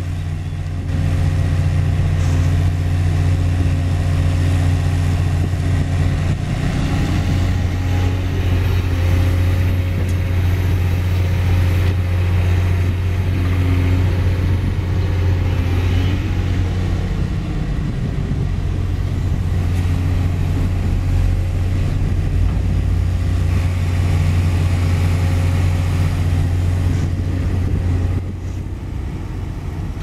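Diesel engine of a JCB crawler excavator running steadily under load while it digs and swings soil into a dump truck: a low, constant drone whose note shifts briefly a few times as the arm works.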